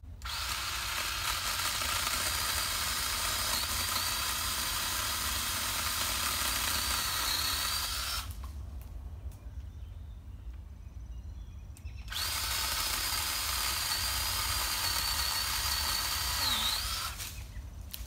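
Black+Decker 20V cordless pole saw's electric motor and chain running in two long runs, about eight and five seconds long, with a quieter gap between them, as it cuts tree branches. It has a steady high whine, whose pitch sags briefly near the end of the second run.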